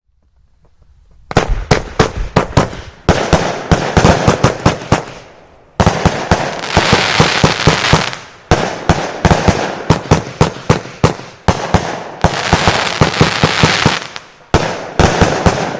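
Heron Fireworks Estate 75-shot firework cake firing: sharp bangs begin about a second in and follow in quick succession in several volleys, with denser stretches of crackle between the reports.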